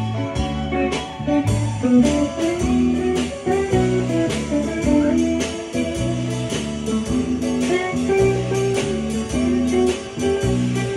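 Live band playing an instrumental break, with an electric guitar solo over bass, keyboard and a steady drum beat.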